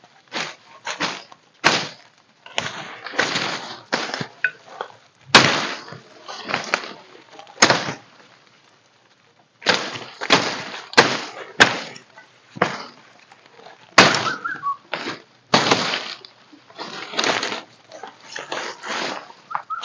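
Irregular cracking and crunching: a long run of sharp snaps and short rustling bursts, with a pause of about two seconds before the middle.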